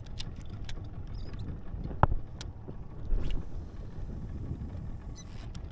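Small fishing boat's outboard engine running steadily, with wind on the microphone and a few sharp knocks, the loudest about two seconds in.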